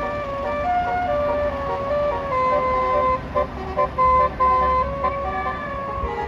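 Bus's Basuri telolet horn playing a melody of held and short repeated notes that step up and down in pitch, loudest about four seconds in, over a bus engine's low rumble.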